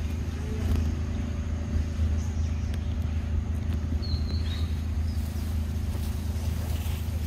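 A steady low hum, like a motor or engine running, with a short high chirp about four seconds in.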